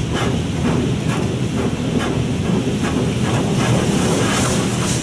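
D&S 5000 in-bay automatic car wash spraying its high-pressure rinse over the car, heard from inside the cabin as a loud, steady rush of water on the windshield and body. The rush pulses about three times a second over a low steady hum.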